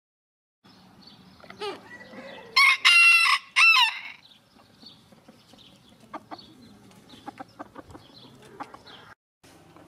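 A rooster crowing once, a loud cock-a-doodle-doo about two and a half seconds in that ends on a falling note. Hens cluck softly with short calls afterwards.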